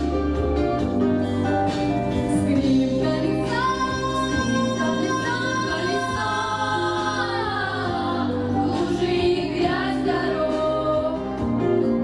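A vocal group singing in harmony over instrumental backing with a steady bass line. Near the middle the voices hold a long note, then slide down in pitch.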